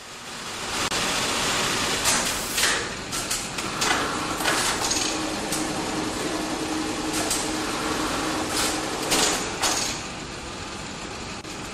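Many industrial sewing machines running in a garment workroom: a busy mechanical clatter with sharp clacks now and then, and a steady hum for a few seconds in the middle.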